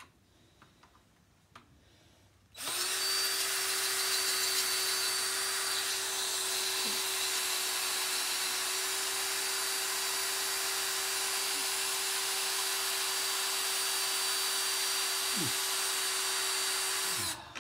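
Cordless drill running steadily under load as it drills out a rusted screw head on a window pivot bar, using a dull bit. It starts about two and a half seconds in, holds one steady pitch, and winds down just before the end.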